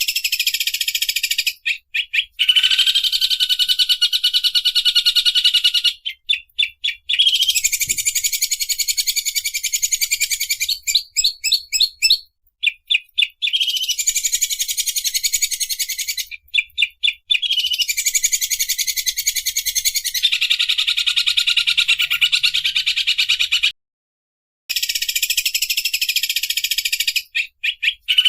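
Songbird's rapid, rattling 'sewing-machine' trill, high-pitched, given in long phrases of several seconds each, with short runs of separate clicks between the phrases. The sound cuts out abruptly for about a second near the end, as in an edited, looped recording.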